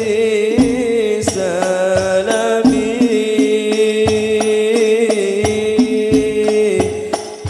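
Male lead voice singing a sholawat (Islamic devotional song) through a microphone in a wavering, ornamented melody, with hadrah frame drums (rebana) beating under it.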